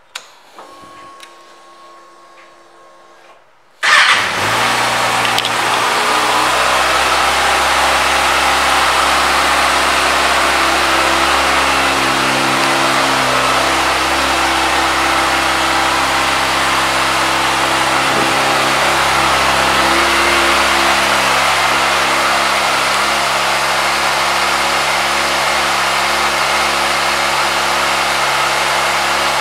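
2020 Kawasaki Ninja ZX-6R's 636 cc inline-four engine starting about four seconds in, after a few seconds of near quiet with a faint hum, then settling into a steady idle.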